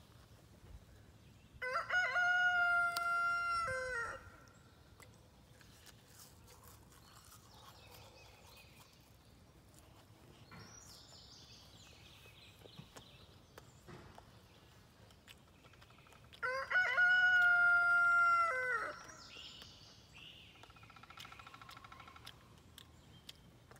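A rooster crowing twice, each crow about two and a half seconds long, the second coming about fifteen seconds after the first.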